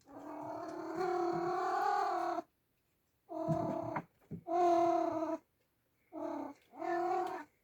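Oriental Shorthair cat meowing loudly: five drawn-out meows, the first about two seconds long and the rest shorter, with short pauses between them.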